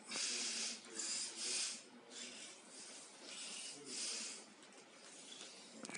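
A person breathing audibly, a series of noisy breaths, strongest in the first two seconds and again about four seconds in, fainter in between and near the end.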